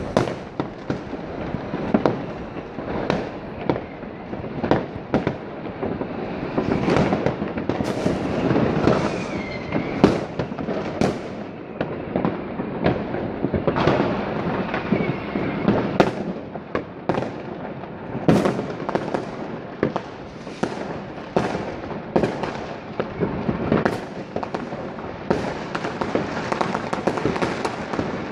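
New Year's Eve fireworks: a continuous barrage of bangs from firecrackers and exploding rockets, near and far, overlapping with no real pause. A brief whistle sounds twice.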